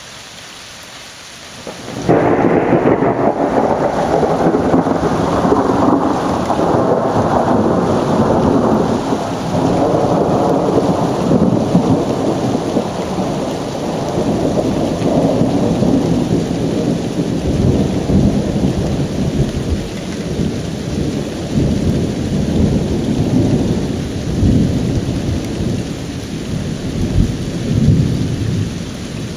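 Steady rain hiss, then about two seconds in a sudden loud thunderclap that rolls on as a long rumble with repeated swells, slowly fading toward the end.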